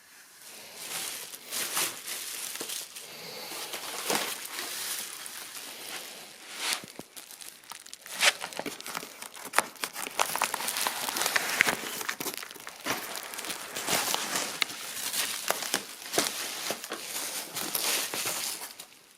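Packaging crinkling and rustling as kit parts are unpacked, with frequent small clicks and knocks.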